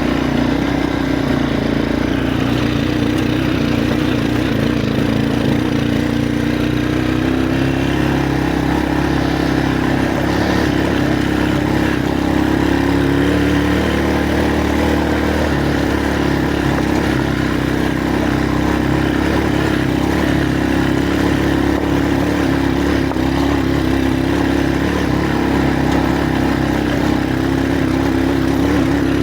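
A vehicle engine runs steadily on a rough off-road track, its pitch rising and falling a little with the throttle.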